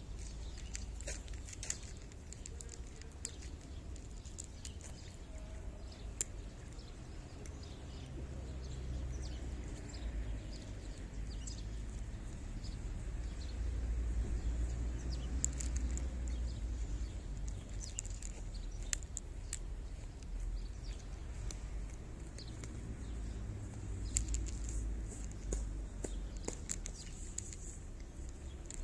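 A cat licking cloth: short, irregular rasping clicks, scattered unevenly, over a continuous low rumble.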